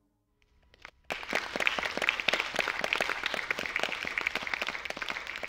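Applause breaks out about a second in, after a moment of silence, and continues steadily.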